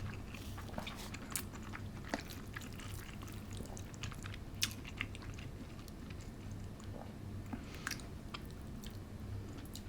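Close-miked chewing of spicy mixed noodles with crunchy old cucumber: soft, scattered crunches and wet mouth clicks over a faint low hum.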